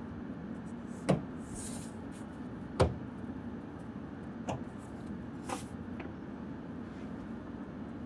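A few sharp knocks and clicks from handling the hard parts of a retractable truck bed cover, the two loudest about one and three seconds in, with a brief rustle between them, over a steady low hum.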